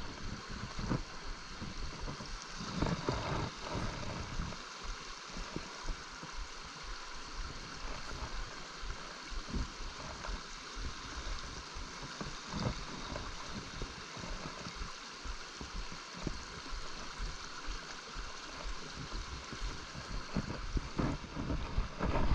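A small brook's water running steadily, with occasional short low thumps.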